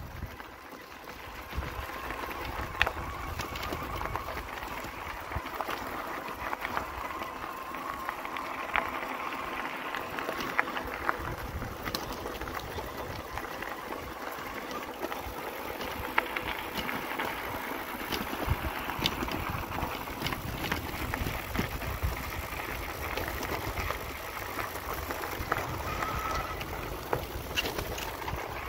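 Riese & Müller Delite GT e-bike being ridden over rough two-track: the mid-drive motor whirring, with tyre and ground noise, wind rumbling on the microphone, and frequent clicks and rattles from the bike and its loaded bags.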